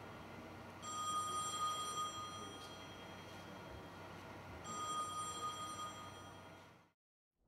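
An electronic telephone-like ringing tone sounds twice, each ring about two and a half seconds long with a short pause between. All sound then cuts off suddenly near the end.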